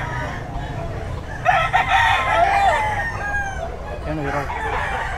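A rooster crows once, about a second and a half in, a wavering call lasting about a second and a half. Another crow begins near the end, over a steady low background rumble.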